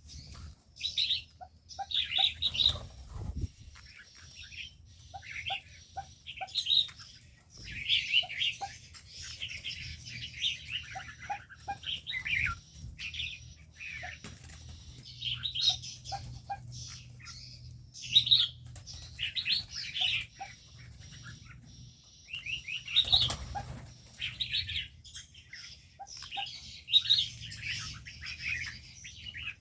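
Many small cage birds chirping and twittering together without pause, with short repeated lower notes among them. Wings flap in brief rushes a few seconds in and again about three-quarters of the way through.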